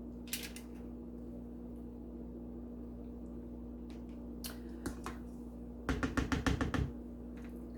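Kitchen handling sounds: a single click, a few soft knocks, then a quick run of light taps lasting about a second, over a steady low hum.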